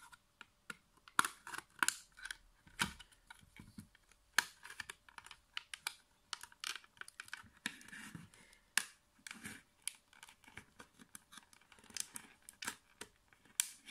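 Plastic snap-tab case of a WD Elements portable hard drive being pried open with a knife blade: irregular small clicks and scrapes as the blade works along the seam and the tabs give one by one.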